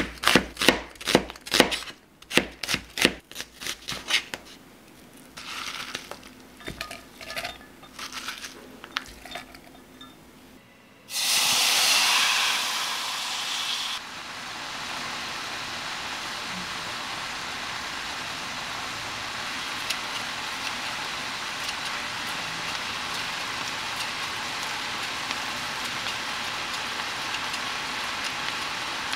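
A knife chops through onion on a cutting board in quick, regular strokes, then taps more sparsely. From about eleven seconds in, marinated bulgogi beef sizzles and bubbles in its sauce in a frying pan. The sizzle is loudest for the first three seconds, then settles into a steady sizzle.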